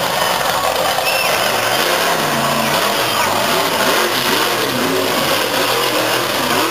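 Monster truck engines revving, the pitch rising and falling several times from about two seconds in, over steady loud engine noise.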